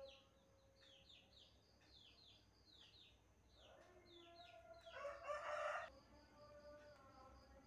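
A rooster crowing, building from about three and a half seconds in and loudest around five to six seconds. Faint, short high chirps that fall in pitch, in clusters of two or three, repeat before it.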